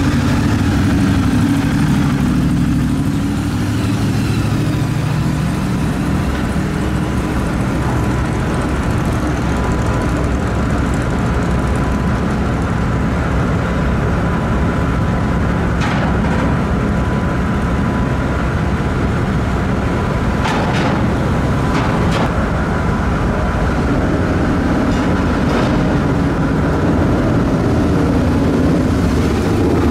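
Motorcycle and car engines running as vehicles drive aboard a ferry's car deck, a steady low rumble that is loudest at the start and again near the end as motorcycles pass close by. A few brief knocks come through in the middle.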